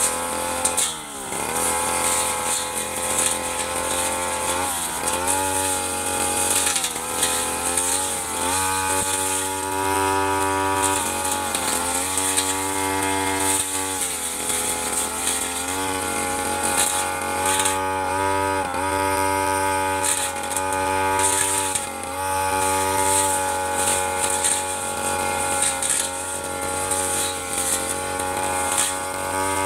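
Stihl 3001 two-stroke backpack brush cutter running at high revs while its large blade cuts tall grass. The engine pitch dips briefly and climbs back many times.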